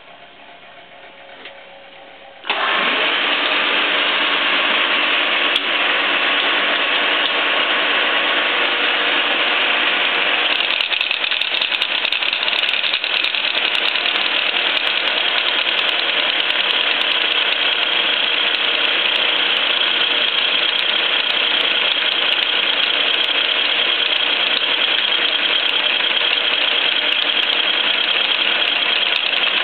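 Biernatzki milling machine switched on about two and a half seconds in, then running steadily. From about ten seconds in, a Sandvik face mill cutting SAE 1045 steel makes the sound fuller and harsher, with a steady high whine and scattered ticks over the running.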